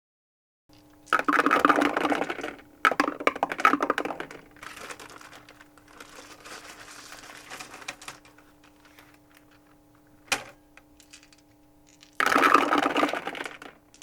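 Dice rolled through a dice tower, clattering and rattling down inside it and tumbling out, in several separate rolls: a burst about a second in, another near 3 s that trails off in rattles, a single click near 10 s, and a last burst about 12 s in.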